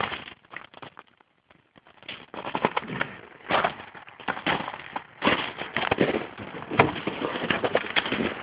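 Crunching footsteps, a louder step roughly every second, starting about two seconds in after a near-quiet moment.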